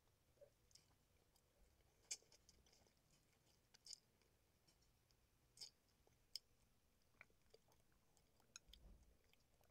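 Faint eating sounds: soft, irregular clicks of a spoon in a soup bowl and chewing, over near silence.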